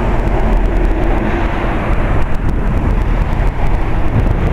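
Wind buffeting the microphone in a loud, steady rumble, with a faint engine hum under it for about the first second and a half.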